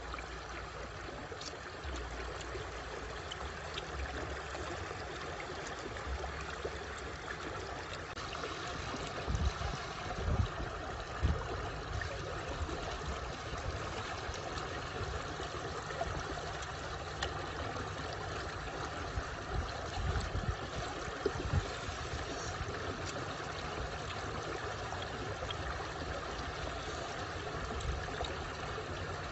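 Shallow stream running and trickling over rocks, a steady rush of water, with a few dull low thumps about a third and again two-thirds of the way through.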